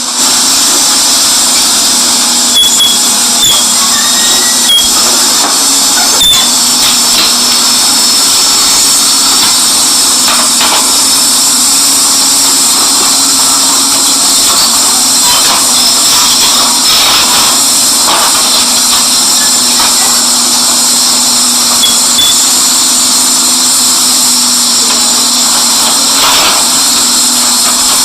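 Excavator running steadily: a constant loud engine and hydraulic noise with a low hum and strong hiss, broken by a few short squeaks and clicks.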